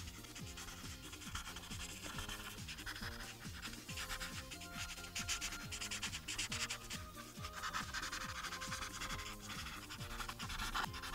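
Ohuhu paint marker tip rubbing and scratching on paper in quick, repeated strokes as stripes are filled in, over background music with a steady beat.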